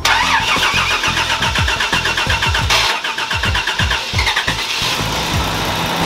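Toyota FJ62 Land Cruiser's 3F inline-six cranking and catching in a rough, uneven start, then settling toward a steadier idle about five seconds in. It is the first start since a failed starting relay was replaced.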